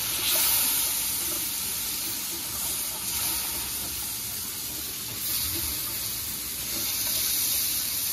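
Curry seasoning sizzling in a hot pot: a steady hiss that swells a few times.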